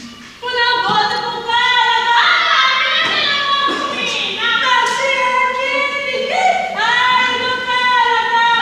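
A group of voices singing a song together in held notes, coming in loudly about half a second in.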